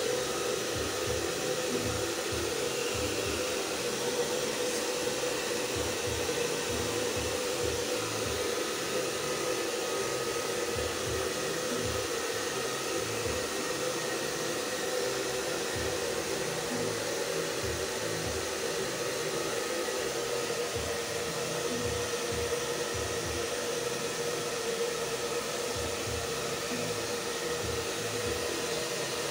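Handheld hair dryer running steadily, its motor giving a constant hum under the rush of air.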